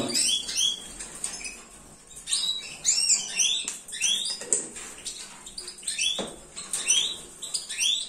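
Caged goldfinches and canaries chirping and twittering in rapid, repeated short calls, with a few light knocks from plastic supplement tubs being handled, the clearest about six seconds in.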